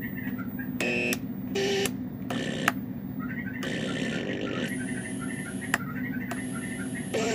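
Handmade electronic synth played by pressing its buttons: a steady low buzzing drone under a warbling chirp pattern of about two chirps a second, with harsh tones and noise blasts that cut in and out abruptly, roughly once a second.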